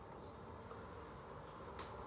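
Quiet room noise with one faint click about 1.8 seconds in.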